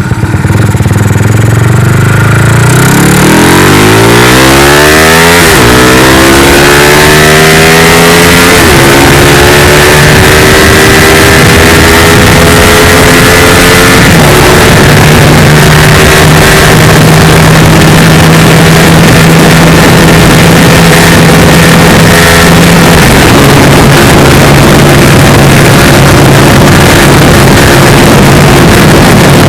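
Yamaha LC135 ES single-cylinder 135cc four-stroke through a Leo Vince Corsa CF aftermarket exhaust, accelerating hard: the engine note climbs, drops back at each upshift, and climbs again three times before holding a steady high-speed drone. Heavy wind rushing over the microphone grows with speed.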